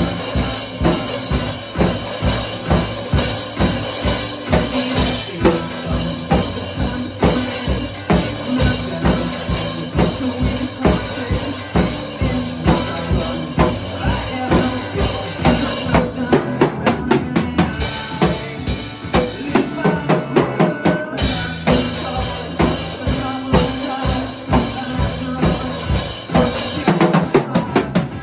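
Drum kit played along to a rock song, a steady beat of bass drum and snare hits over the backing music. About two-thirds of the way through the bass drops out for a few seconds while the drumming carries on, then the full band comes back in.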